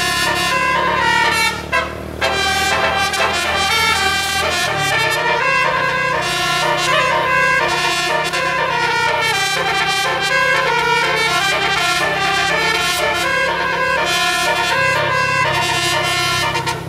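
Bus telolet horn, a basuri set of electrically switched air-horn trumpets, playing a melody of quick stepped notes with a short break about two seconds in, over a steady low hum.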